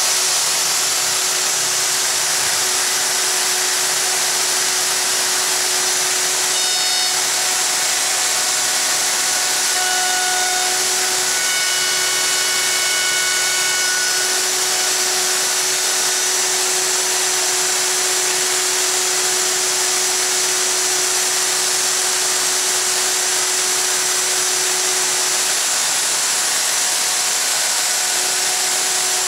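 Festool OF2200 router running steadily at full speed, cutting a miter-track slot in a laminate-covered table top, with the dust-extraction vacuum drawing through it.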